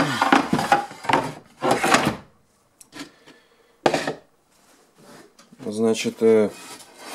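Laminated plywood boat floor panels and aluminium profiles being shifted by hand, scraping and rubbing for about two seconds, then a single knock about four seconds in.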